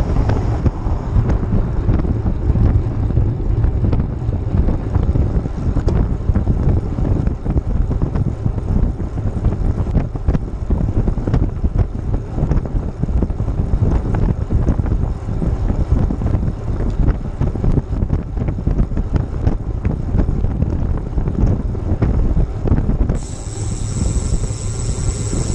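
Wind buffeting a moving GoPro's microphone, a steady low rushing noise while riding along a road. A high, steady buzz joins near the end.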